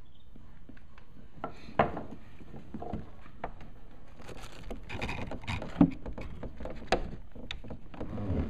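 Scattered clicks, taps and knocks of parts being handled, with three sharper knocks about two, six and seven seconds in, as the cigarette lighter socket is brought to its hole in the boat's panel.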